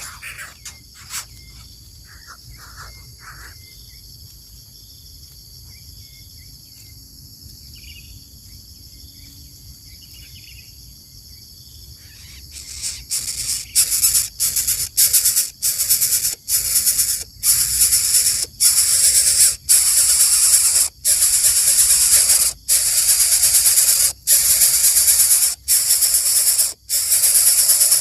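A steady high-pitched outdoor drone with a few faint chirps. About halfway through, loud background music with a rattling, shaker-like rhythm cuts in and takes over.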